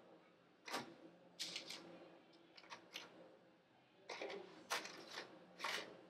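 Parchment paper on a baking tray rustling and crinkling in a series of short, crisp bursts as cookie dough balls are set down on it, over a faint steady hum.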